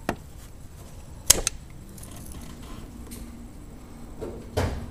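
Sharp clicks of hose fittings and hand tools being handled, with a loud click about a second in followed by a smaller one, and a duller knock near the end, over a faint steady hum.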